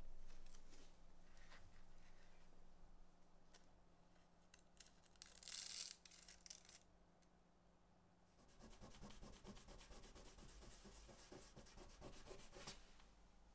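Faint rubbing and scraping of hand work on leather: a few light clicks, a brief louder scrape about five seconds in, then a steady run of small quick scratchy strokes through the last few seconds.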